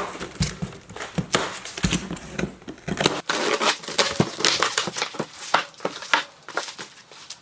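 A cardboard shipping box and its packing being opened by hand: crinkling, tearing and rustling, with many irregular small knocks and scrapes.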